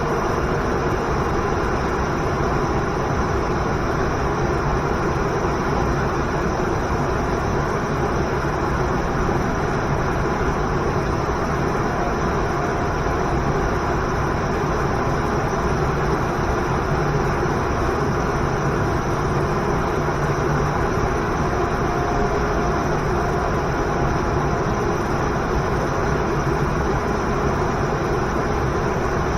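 Waterfall and river rushing steadily, an unbroken noise of falling water.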